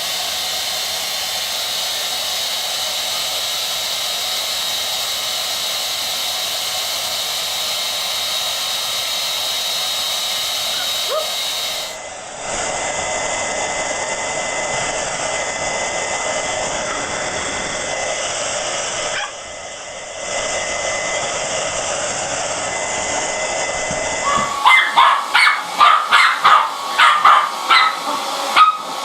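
Hair dryers blowing steadily with a thin whine, across two clips with a brief dip in between. Near the end a dog starts barking rapidly and repeatedly, about three barks a second.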